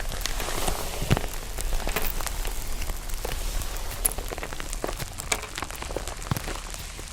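Slime being pressed and squeezed so that it cracks: a dense, rain-like crackle with many small sharp pops scattered through it, a few louder than the rest.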